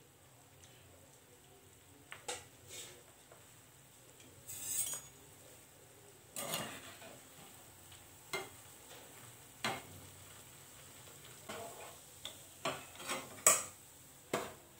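Bread cubes frying in hot oil in a small steel kadai with a faint steady sizzle, while a steel spoon scrapes and clinks against the pan as the pieces are turned. The clinks come every second or so and grow quicker and louder near the end as the fried pieces are lifted out.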